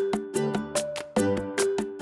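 Light instrumental background music with short, quickly fading notes on a steady, quick beat.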